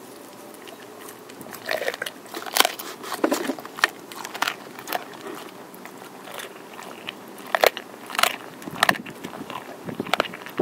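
An American Pit Bull Terrier chewing a raw turkey neck: irregular sharp cracks and crunches as the bones break between her teeth, starting about a second and a half in.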